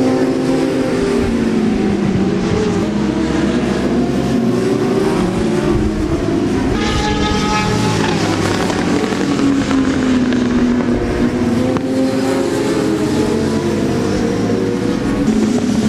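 Racing sport motorcycle engines at high revs as bikes pass on the track, their pitch rising and falling as they accelerate and brake. About seven seconds in, a higher-pitched engine note briefly cuts through.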